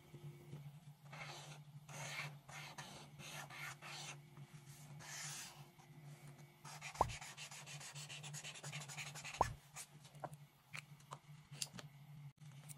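Paint-marker tip scraping across paper in drawn strokes, turning into a quick run of short zigzag scribbles in the second half. Two sharp taps stand out, about seven seconds in and again two seconds later.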